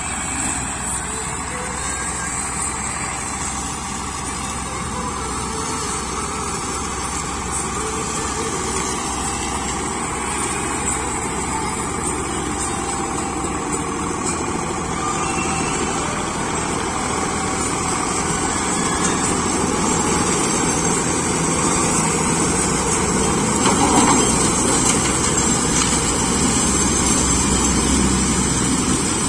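SAME Greaves 503 tractor's diesel engine running under load while its rear-mounted sugarcane trash cutter shreds dry cane leaves. The sound is steady and grows louder as the tractor comes close.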